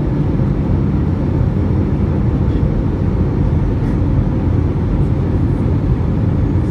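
Steady low rumble of an Airbus A321 in flight, engine and airflow noise heard inside the passenger cabin.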